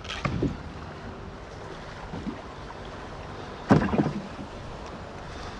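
Handling knocks on a plastic kayak while a baitfish is hooked: a few light knocks near the start and one sharper knock a little under four seconds in, over a faint steady background.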